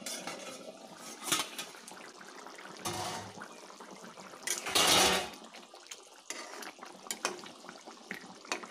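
Thin chicken and potato curry simmering in an open metal pan while a metal spatula stirs it, with sharp clinks and scrapes of spatula against pan; the loudest is a longer scrape about five seconds in.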